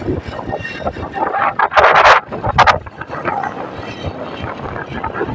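Vehicle driving along a road, with wind rushing over the microphone and two strong gusts about two seconds in.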